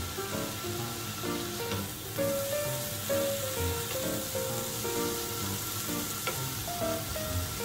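Beef and green peppers sizzling steadily on a tabletop gas grill plate, with a couple of clicks of metal tongs as the meat is turned. Background music with short melodic notes plays over it.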